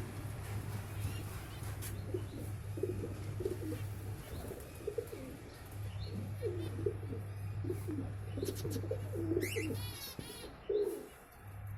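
Pet doves cooing repeatedly in low, soft phrases, over a steady low hum. A brief high chirping trill comes near the end.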